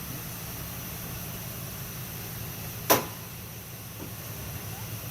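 A single sharp knock about three seconds in, over a steady low hum.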